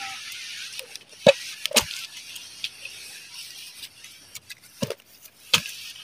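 Footsteps in rubber flip-flops on dry grass and fallen leaves: about four separate sharp steps, two in the first two seconds and two near the end, with faint rustling between them.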